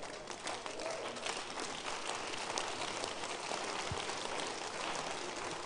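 Congregation clapping, quiet and steady, many hands at once.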